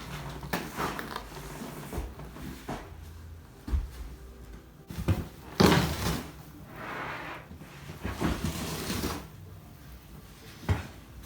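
Old twin-tub washing machine being handled, its lids and panels knocked and banged, with some scraping between. The loudest bang comes about five and a half seconds in.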